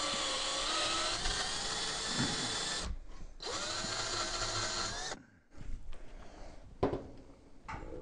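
Electric drill on low speed turning a reamer as it is drawn back out of a steel VW Beetle door hinge clamped in a vise, the last step after reaming the hinge pin hole. The drill runs steadily, stops briefly about three seconds in, picks up speed again, and stops for good a little after five seconds, followed by a couple of light knocks near the end.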